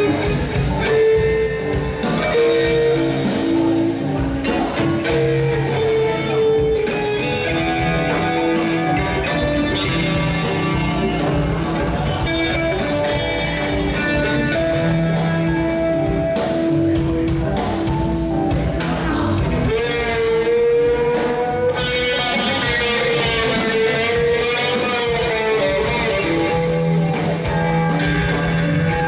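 Guitar-led band music with sustained and bending notes over a steady beat.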